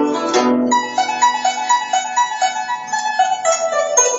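Guzheng (Chinese zither) played solo, its strings plucked by hand. Fuller plucked notes sound at the start, then a quick run of single higher notes fills the middle, and fuller, lower notes return near the end.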